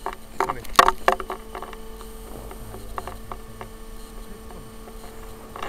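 Knocks and clicks of the RC model airplane being handled, heard through its onboard camera, clustered in the first second or so, followed by a faint steady electrical hum.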